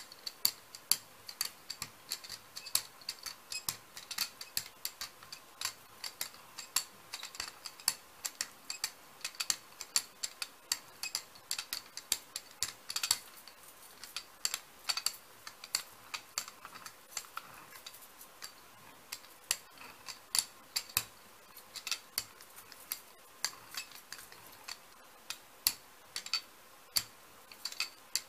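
Small hand brayer being rolled back and forth over wet acrylic paint on a stencil on a gel plate, giving quick, irregular clicks and light metallic clinks, several a second.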